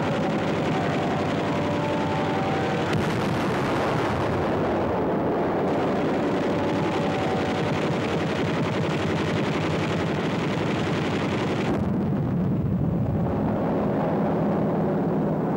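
Continuous gunfire and explosions from a wartime battle soundtrack, dense and unbroken, with a steady drone of tones underneath.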